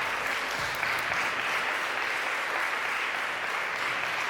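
Audience applauding: steady, dense clapping from a crowd.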